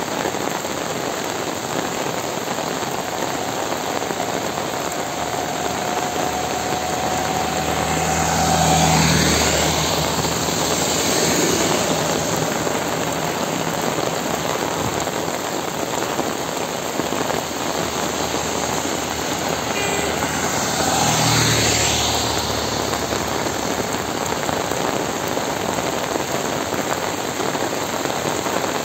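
Steady heavy rain, with two motor vehicles passing, one about eight seconds in and one about twenty seconds in. Each one's engine and wet-tyre hiss swell up and then fade as it goes by.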